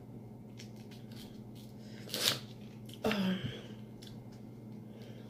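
Quiet eating sounds of a person cutting and peeling shrimp by hand, with faint clicks of shell and kitchen scissors. A short breathy sniff about two seconds in and a brief mouth noise about three seconds in stand out.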